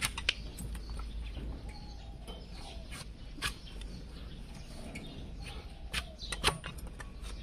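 A long hoof-trimming blade cutting and chopping an overgrown donkey hoof on a trimming stand: irregular sharp cracks and knocks as the horn is sliced away, with louder strikes near the start, about three and a half seconds in and about six and a half seconds in.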